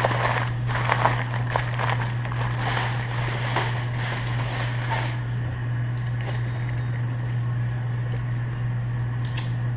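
Aluminium foil crinkling and rustling as hands fold and crimp it shut around a rack of ribs, busiest in the first half and thinning out after, over a steady low hum.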